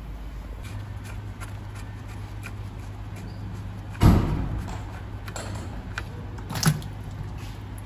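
Workshop knocks over a steady low hum: small clicks and taps, a loud bang about four seconds in that dies away over a moment, and a sharper knock near the end.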